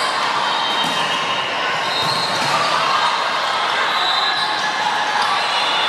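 Indoor volleyball rally in an echoing gym: the ball being hit and shoes squeaking on the hardwood court, over the voices of players and spectators.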